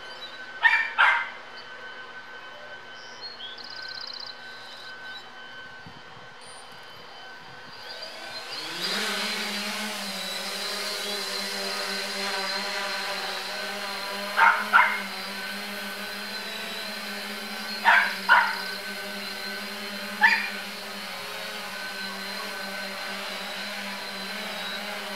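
3DR Solo quadcopter's motors and propellers hum steadily, then spool up with a rising whine about eight seconds in as it lifts off, settling into a louder steady buzzing hum in flight. A dog barks seven times, mostly in quick pairs, near the start and again later; the barks are the loudest sounds.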